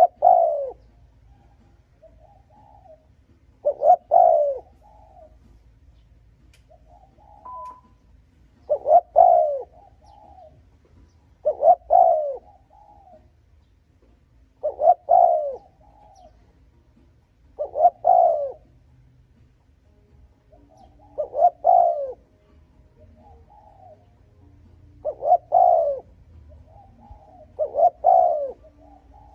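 Spotted dove cooing, one phrase about every three seconds. Each phrase is a loud coo that falls in pitch, with a softer short note or two before or after it.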